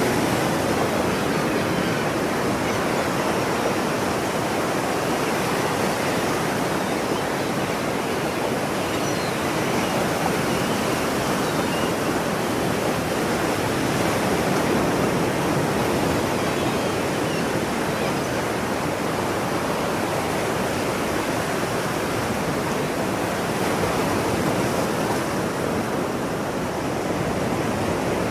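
Ocean surf: a steady rush of breaking waves that barely rises and falls, with no distinct wave crashes.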